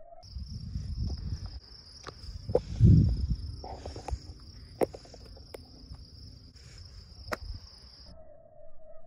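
Insects, likely crickets, trilling steadily and high-pitched at night. Under them runs a low rumble, loudest about three seconds in, with a few sharp clicks scattered through.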